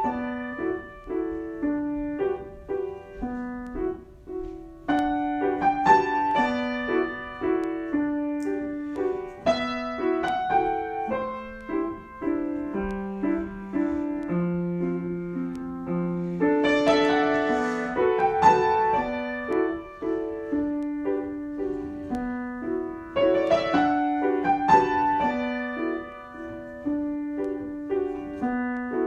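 Piano being played in a free improvisation: gentle chords and melody notes that ring and fade, with a lower, slower passage in the middle.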